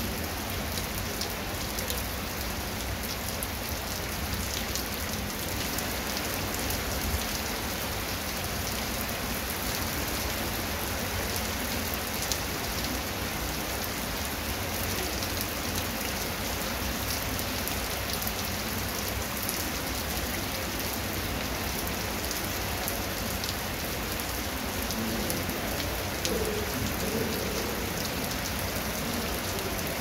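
Steady rain falling on a wet concrete path and grass: an even hiss with a fine patter of individual drops.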